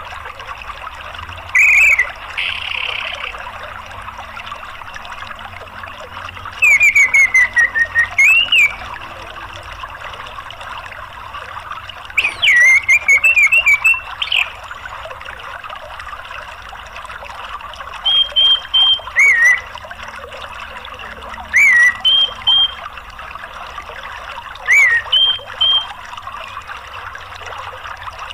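Orange-headed thrush (anis merah) singing short phrases of sliding chirped notes, about six of them a few seconds apart, over the steady rush of a stream or waterfall.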